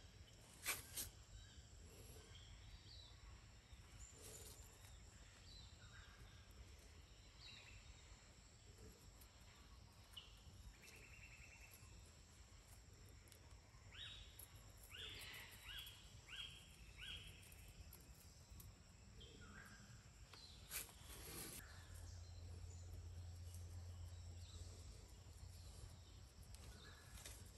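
Near silence: faint outdoor ambience of a steady high insect drone and scattered bird calls, with a quick run of short chirps about halfway through. Two brief sharp clicks are the loudest sounds, one right at the start and one about three-quarters of the way in.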